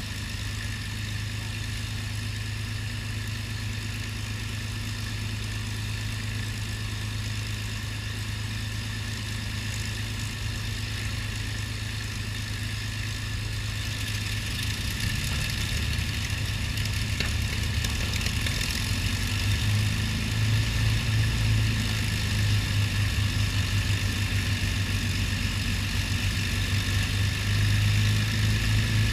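Avro Lancaster's Merlin V12 piston engines running at idle, a steady low drone that slowly grows louder, with a throbbing beat setting in about two-thirds of the way through.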